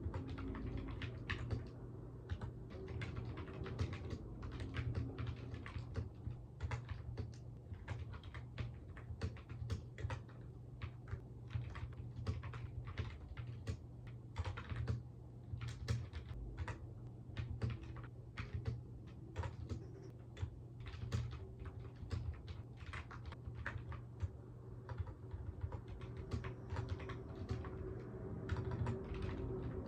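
Typing on a computer keyboard: a steady, irregular run of keystrokes, with a steady low hum beneath.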